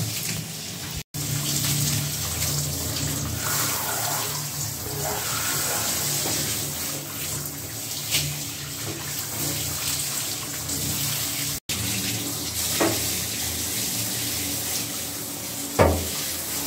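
Handheld shower spraying water onto a husky's wet coat in a bathtub: a steady rush of water that breaks off for an instant twice. A short thump near the end.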